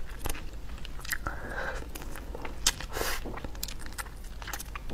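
Close-miked mouth sounds of eating spicy braised duck: chewing and sucking meat off the bone, with wet smacking clicks and a short slurp about a second and a half in.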